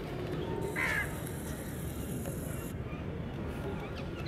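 A crow caws once, about a second in, over a steady low background rumble.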